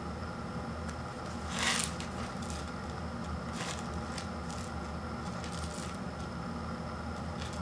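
Paper instant-noodle cup rubbed and turned in the hands, with one louder rustling scrape about a second and a half in and a few faint scuffs after it, over a steady background hum.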